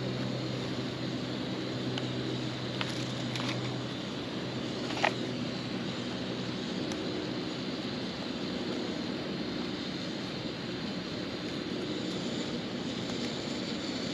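A distant engine drones steadily over a steady background hiss, its lowest hum fading out about halfway through. A few light clicks sound along the way, the sharpest about five seconds in.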